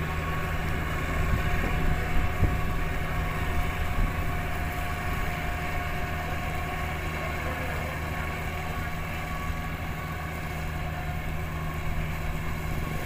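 Iseki farm tractor's diesel engine running steadily under load as it plows a flooded rice paddy. It is a constant low hum with a faint higher whine above it.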